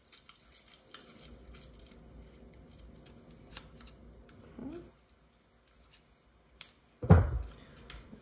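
Scissors cutting construction paper in a run of short snips, followed by one loud thump about seven seconds in.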